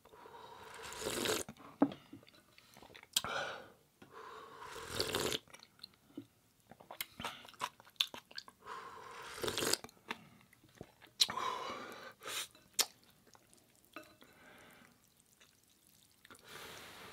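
A person slurping instant ramen noodles and broth from a bowl, about five slurps a few seconds apart, with wet chewing and small mouth and chopstick clicks in between.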